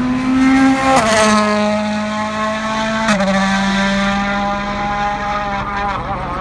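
Rally car's 1.6-litre turbocharged four-cylinder engine running hard at speed. Its note drops in two steps, each with a sharp crack, about one and three seconds in, as it changes gear, and the pitch wavers near the end.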